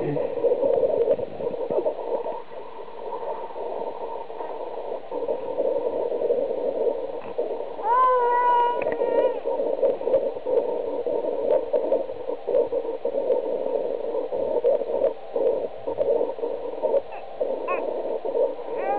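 A three-month-old baby fussing, with a short pitched cry about eight seconds in and another wavering cry starting at the very end, over a steady noisy hum.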